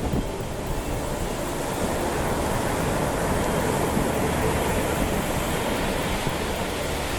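Water washing in waves: a steady rushing noise that swells slightly through the middle.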